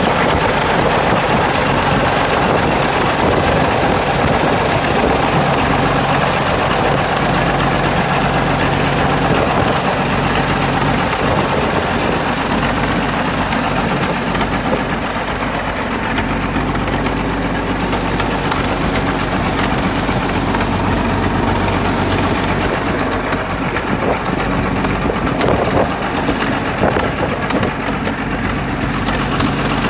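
Caterpillar D8 crawler tractor's engine running steadily at idle, with a slight change in its pitch about a third of the way in.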